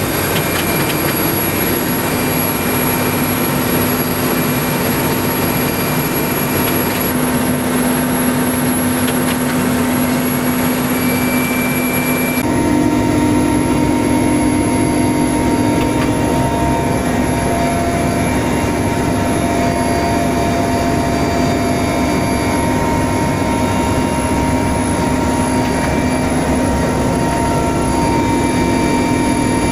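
Military helicopter in flight heard from inside the cockpit: a steady drone of turbine engines and rotor with a constant high whine. Its tone changes slightly about twelve seconds in.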